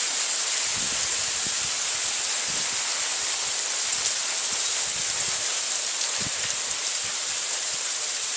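Heavy hail coming down fast: a dense, steady hiss of hailstones striking surfaces, with a few faint low thuds.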